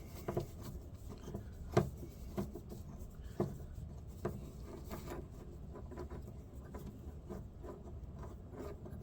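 Handling noise: scattered small clicks and knocks with some rubbing as small parts are handled, with a few sharper knocks in the first half, over a steady low hum.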